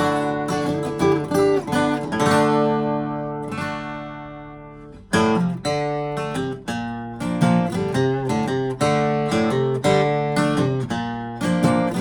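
A 2000 Gibson J-45 acoustic guitar strummed in chords. About two seconds in, a chord is left to ring out and fade for a few seconds, then the strumming starts again.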